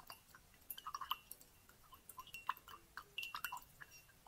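A run of soft, wet mouth clicks and lip smacks in ASMR style, irregular and quick.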